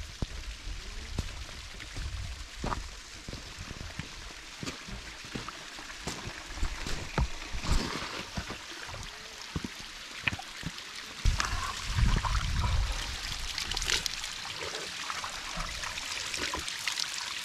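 Stream running, with steady splashing and gurgling; a low rumble swells for a couple of seconds past the middle.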